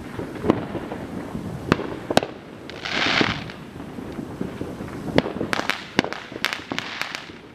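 Aerial fireworks going off: scattered sharp bangs, then a quick cluster of reports over the last two and a half seconds, with a short hiss about three seconds in.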